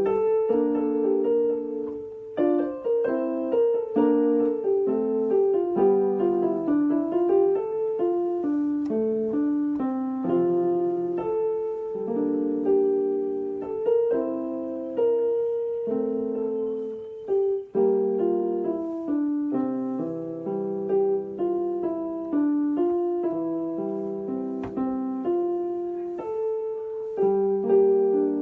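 Background piano music, a gentle melody with chords.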